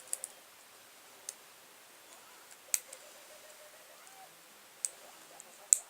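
A handful of sharp plastic clicks spaced irregularly, a quick cluster at first and single ones later, the loudest near the end: the buttons of a light-up plastic fidget spinner being pressed to switch it off, along with handling.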